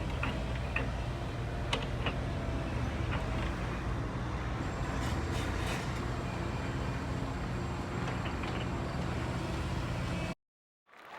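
Radio-controlled model construction machines running: a steady low motor hum with scattered clicks and knocks, cutting off abruptly about ten seconds in.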